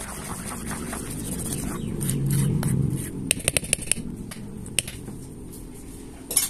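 Metal spoon stirring a thick wheat-flour and semolina batter in a stainless steel bowl, with a quick run of sharp clicks of the spoon against the bowl about halfway through and single clicks later.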